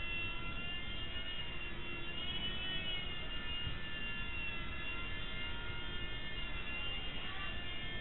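Blade mSR micro RC helicopter hovering: its electric motors and rotor give a steady high whine with several overtones, the pitch drifting up and down slightly with the throttle, over a low rumble.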